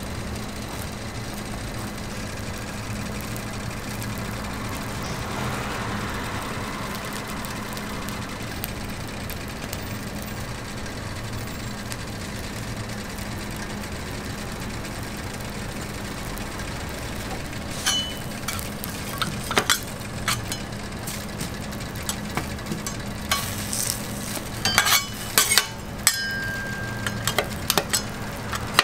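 Steady low hum with a faint frying sizzle off a flat griddle. From about two-thirds of the way through, a run of sharp metal clinks and scrapes as a steel spatula knocks against the square steel egg frames and the griddle top, a few of them ringing briefly.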